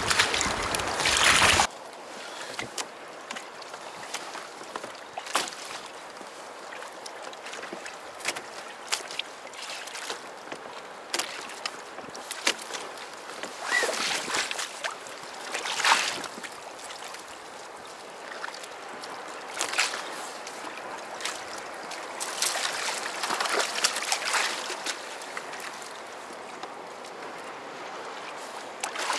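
Sea water lapping and splashing against a kayak's hull, with scattered short splashes as a hooked bonito thrashes at the surface alongside. A louder rush of noise fills the first second or two, then it drops to the quieter lapping.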